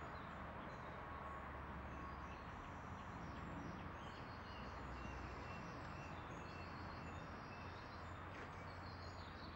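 Birds chirping over a steady low background hum.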